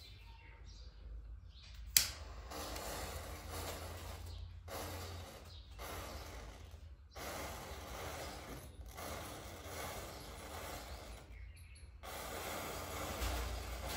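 A row of standing matchsticks igniting one after another: a single sharp click about two seconds in, then a steady, faint crackling hiss as each match head flares and catches the next.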